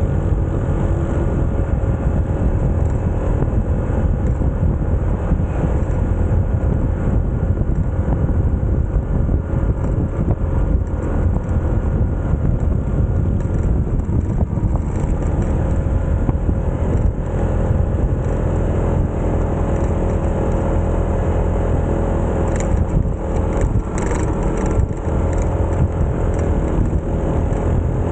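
A 150 cc single-cylinder motorcycle engine running steadily on the move, under a heavy rumble of wind on the microphone. A few short sharp ticks come about three-quarters of the way through.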